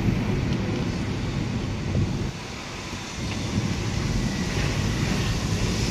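Car driving slowly, heard from inside the cabin: a steady low rumble of engine and tyres on the road, dipping briefly a little over two seconds in.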